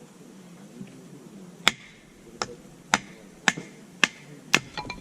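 Six sharp chopping strikes, about two a second, each with a short ring, followed by a few lighter clicks near the end.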